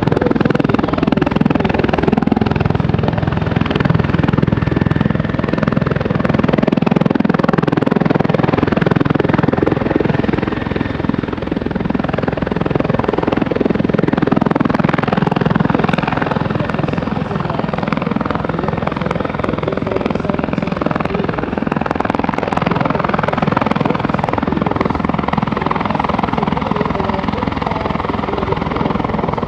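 RCAF CH-146 Griffon twin-turbine helicopter flying close by, its rotor beating steadily over the turbine noise.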